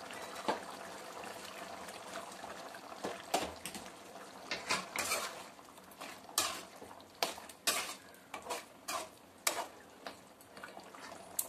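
Metal spoon stirring mutton curry in an aluminium kadai, clinking and scraping against the pan many times, most densely from a few seconds in until near the end, over a steady hiss.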